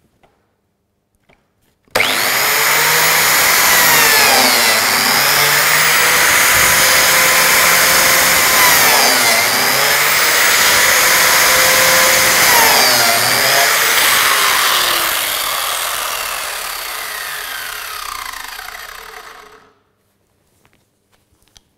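An electric biscuit jointer starts suddenly and runs with a high whine. Its motor dips in pitch and recovers three times as the blade plunges into the wood to cut three slots. It is then switched off and winds down over a few seconds until it stops.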